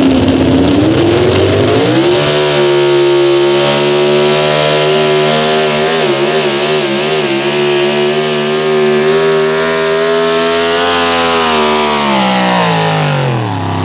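Pro stock four-wheel-drive Ford pickup's engine at high revs under full load as the truck drags the pulling sled. The pitch climbs to a steady high note about two seconds in, wavers briefly in the middle, and winds down near the end as the pull finishes.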